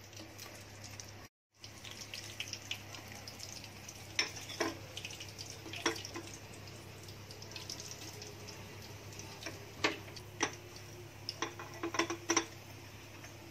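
Chicken cheese balls frying in hot oil with a steady light sizzle, while a metal slotted skimmer knocks against the pan and a plate: a few sharp clicks about four to six seconds in and a quicker run of them near the end. The sound cuts out briefly about a second in.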